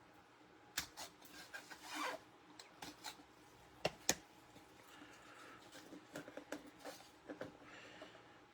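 Trading cards and their packaging being handled: soft rubbing and sliding, with scattered sharp clicks and taps, the loudest about a second in and twice around four seconds in.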